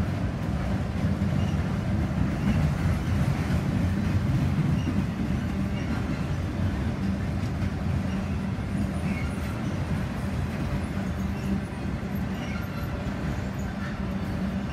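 Freight train of autorack cars rolling across a steel deck bridge: a steady, low rumble of wheels on rail.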